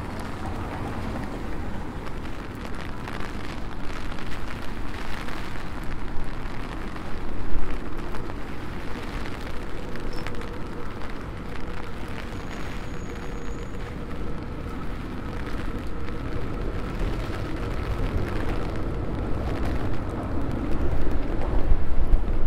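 Rain falling in a city street mixed with traffic running on wet roads: a steady, dense noise with a low rumble, swelling briefly about seven seconds in and growing louder near the end.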